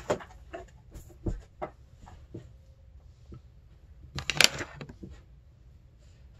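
Small clicks and taps from handling plastic tube-feeding supplies, with one louder half-second rustle about four seconds in.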